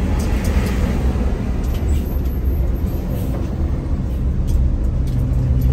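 Bus engine running with a steady low rumble; about five seconds in, a steady hum joins the engine note.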